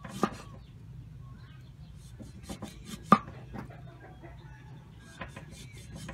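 A broad kitchen knife cutting limes in half on a round wooden chopping board: a series of sharp knocks of the blade meeting the wood, the loudest about three seconds in, with lighter taps and scrapes between.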